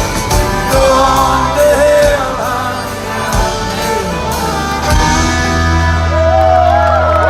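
Live country-rock band playing the instrumental close of a song, with drum hits and gliding fiddle or vocal lines. From about five seconds in the band holds a sustained final chord.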